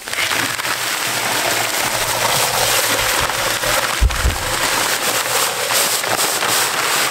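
Dry bagged concrete mix pouring out of a torn paper bag into a cement mixer drum: a steady rushing hiss of sand and gravel sliding into the drum, with one dull thump about four seconds in.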